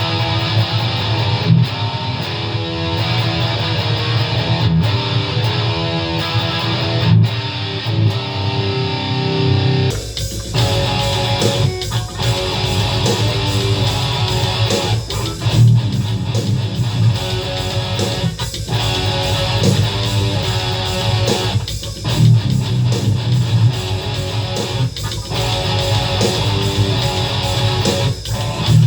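ESP LTD EC-10 electric guitar playing distorted metal riffs through a Boss ML-2 Metal Core distortion pedal. About ten seconds in, a programmed drum-machine beat from a BeatBuddy pedal joins and fills out the sound.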